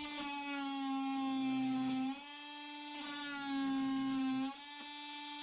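Makita oscillating multi-tool running with a steady high buzz while cutting wood. Twice it gets louder and its pitch sags as the blade bites, each time dropping back abruptly when the load comes off, about two and four and a half seconds in.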